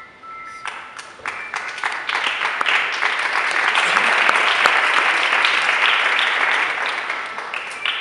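Audience applauding: the clapping starts about a second in, swells to its loudest in the middle and dies away near the end. A few chime-like music notes ring at the start, before the clapping takes over.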